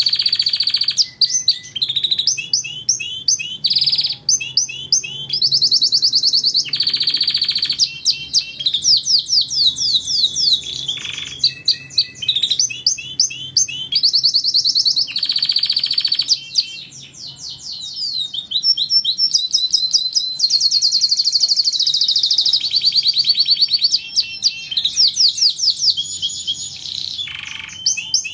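Domestic canary singing continuously: fast trills and rapid runs of repeated notes, with short breaks between phrases.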